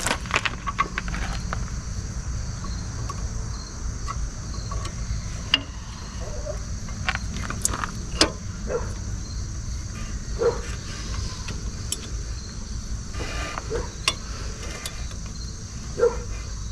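Scattered light metallic clicks and taps as brake pads and their spring-steel retaining clips are handled and worked into a caliper bracket, over a steady high chirring of insects and a low rumble.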